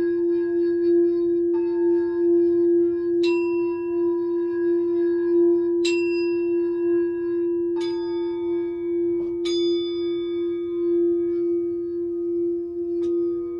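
Singing bowls: one low tone rings steadily throughout, while about seven higher-pitched strikes at uneven intervals each start a new ringing note over it.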